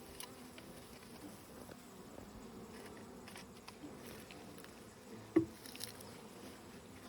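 Honey bees buzzing over an open hive, a faint steady hum. A sharp knock comes about five and a half seconds in, with a few light clicks.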